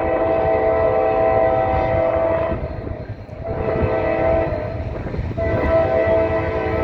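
Norfolk Southern diesel locomotive's air horn sounding a loud chord in long blasts, breaking off briefly about two and a half seconds in and again near five seconds, over the low rumble of the locomotives.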